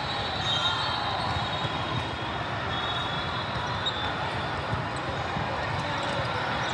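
Volleyball being played in a large gym: a steady hubbub from the hall and crowd, with sneakers squeaking on the court and the ball being struck and bounced.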